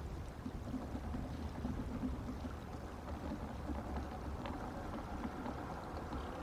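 Steady low outdoor rumble picked up by the nest-cam microphone, with a faint click about four and a half seconds in.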